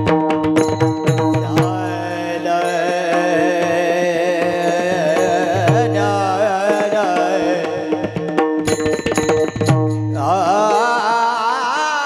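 Varkari kirtan chal: a high, ornamented singing voice over a steady drone, with mridang strokes in quick runs at the start and again about three-quarters of the way through, between the sung phrases.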